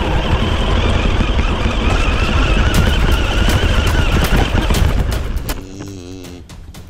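RC car driving over rough pasture ground: its motor whines over a heavy rumble and rattling jolts from the terrain. About five seconds in it slows and goes much quieter, leaving scattered clicks and a brief wavering low tone.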